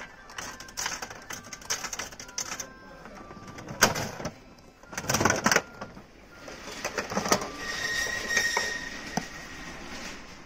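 Gachapon capsule toy vending machine being worked: a run of 100-yen coins clicking into the coin slot one after another, a loud knock, then the plastic crank turned with ratcheting clatter and the plastic capsule rattling down into the chute.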